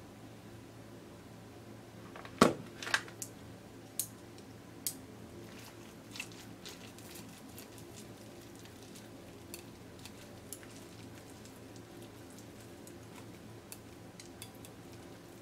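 A ceramic plate is set down on a table with a sharp knock about two seconds in, followed by a few lighter clicks and then scattered faint ticks of plastic chopsticks against the plate as they cut into the okonomiyaki.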